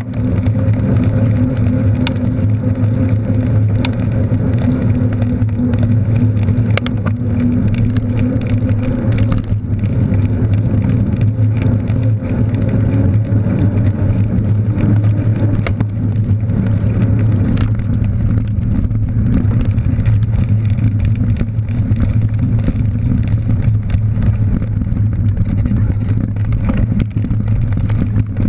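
Steady low rumble of wind and rolling noise picked up by a handlebar-mounted action camera on a cyclocross bike moving at race speed, with scattered sharp clicks and knocks from the bike.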